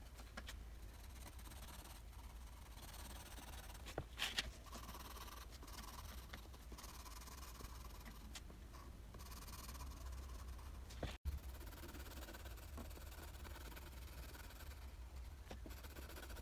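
Faint scratching of a colored pencil shading on paper, over a steady low hum, with a couple of light knocks about four seconds in.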